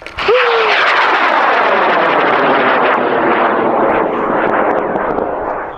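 High-power solid-fuel rocket motor burning as the rocket climbs: a loud rushing roar that comes in suddenly, holds steady with sweeping tones in it, and fades near the end.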